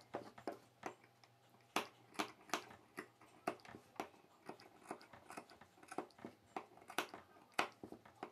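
Tailor's shears clipping small notches into the seam allowance around a stitched curved neck opening in layered blouse fabric and lining: short, crisp snips at an uneven pace, about two to three a second. The clipping lets the curved edge turn inside cleanly.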